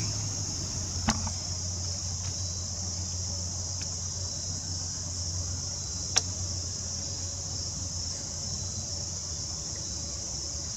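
Steady high-pitched insect chorus with a low hum beneath it, broken by two sharp clicks, one about a second in and one about six seconds in.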